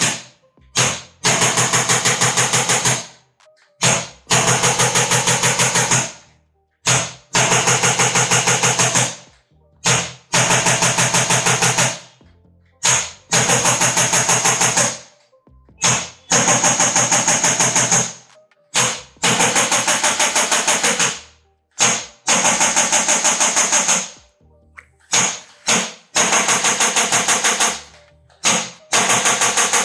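A handheld electric percussion device, of the massager or adjusting-gun kind, buzzing in about a dozen bursts of roughly two seconds each. The bursts are separated by pauses of about a second, and each one is a rapid, even mechanical rattle at a steady pitch.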